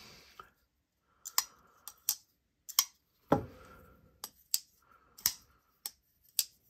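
Civivi Conspirator button-lock folding knife with wood scales being flicked open and shut again and again: about a dozen sharp, unevenly spaced metallic clicks as the blade snaps into the lock and the button releases it, with faint rustle of handling between them.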